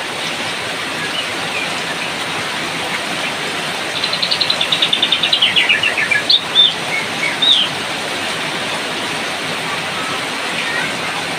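Steady rain hiss with a white-rumped shama singing over it: about four seconds in, a fast run of notes falling in pitch, then a few short whistled notes.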